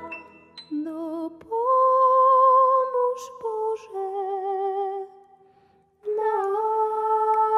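Music: a solo female voice sings a slow melody of long, wavering notes, with a brief pause about five seconds in.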